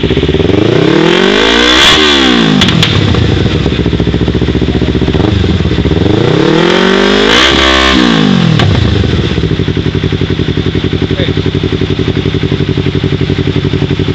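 Yamaha R25's 250 cc parallel-twin engine through a Yoshimura R11 aftermarket exhaust, revved twice, each rev climbing and dropping back over about three seconds. After the second rev it settles to a steady idle.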